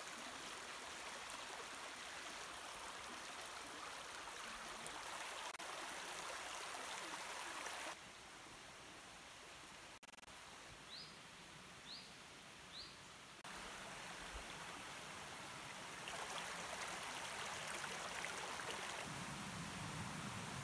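Faint steady rush of a forest stream, its level jumping abruptly several times. About halfway through, a bird gives three short rising calls.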